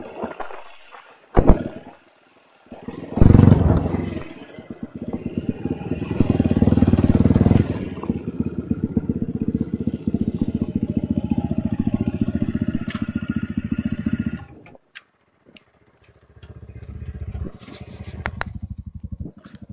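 Enduro motorcycle engine revving hard, then running with a fast, even pulsing beat for about ten seconds; it drops away briefly and picks up again near the end. A single sharp knock sounds about a second in.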